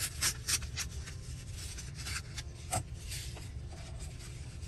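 Paper being handled on a work table: a few light taps and a stretch of rustling and sliding as strips of book page are moved about.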